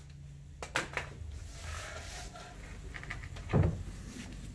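Handling noise from a plywood speaker box and a pneumatic nail gun: two light knocks about half a second to a second in, then a dull thud about three and a half seconds in.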